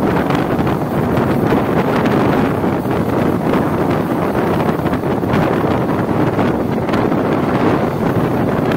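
Wind rushing over the microphone held outside a moving passenger train, with the coaches' running noise underneath, loud and steady.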